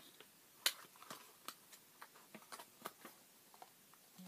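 A small cardboard product box being handled and its flaps and insert worked open: a string of sharp clicks and crinkles, the loudest about two thirds of a second in.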